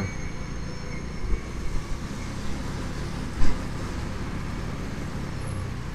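Motorcycle engine running steadily while riding, a low rumble mixed with wind and road noise; a brief louder thud about three and a half seconds in.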